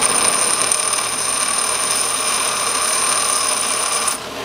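Bench grinder stone wheel grinding a coil-spring steel slitter punch to rough shape: a steady, high-pitched grinding hiss that stops shortly before the end.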